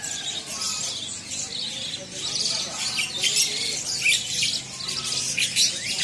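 Caged birds, a crowded cage of Javan mynas among them, chirping and squawking in a dense, overlapping chorus of short, sharp calls. The calls grow thicker and louder about halfway through.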